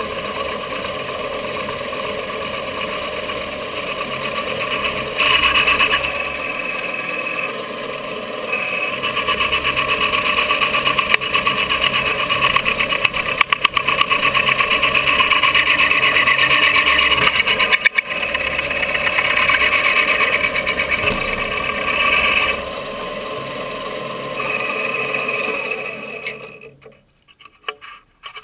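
Benchtop milling machine running, its end mill cutting into a polymer AR-15 80% lower, with louder stretches while the cutter is under load. Near the end the mill shuts off and spins down.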